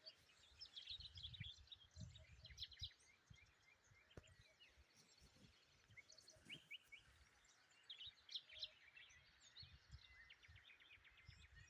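Faint song of a small songbird, locally called tabarghla: quick high chirps and short trills coming in scattered bursts. A low rumble, like wind on the microphone, runs underneath.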